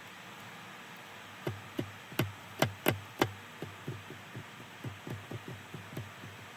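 Keystrokes on a computer keyboard: about fifteen irregular clicks, each with a dull thud. A few near the middle are the loudest, and they thin out near the end.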